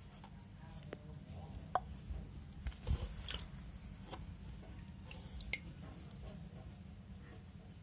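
Small splashes of water and wet clicks as hands set a baby turtle into a shallow plastic tub of water and lift it out again. The sounds are scattered and brief, the sharpest about two to three seconds in, over a steady low hum.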